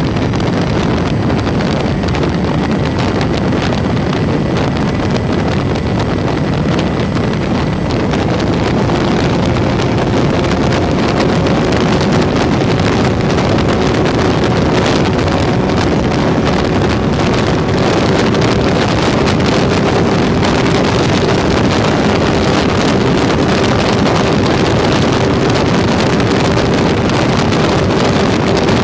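Wind rushing loudly over the onboard microphone of an MPX Tucan RC airplane in flight. From about nine seconds in, a steady tone from the plane's motor and propeller comes through the wind, edging slightly up in pitch.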